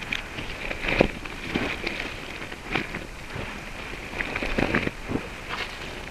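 Boots stepping over dry grass and earth: uneven crunching footsteps with crackling of dry stalks, the sharpest step about a second in.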